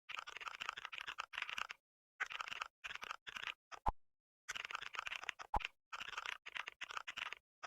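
Computer keyboard typing sound effect in several short bursts of rapid key clicks with silent pauses between them, and a brief tonal blip twice.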